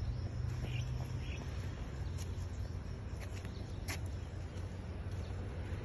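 Outdoor ambience: a steady low rumble with a few short high-pitched chirps, about two and four seconds in.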